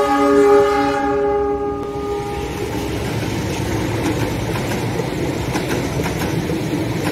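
A train horn sounds a multi-tone chord that dies away two to three seconds in. After it comes the steady rumble and wheel clatter of a train running past on the rails.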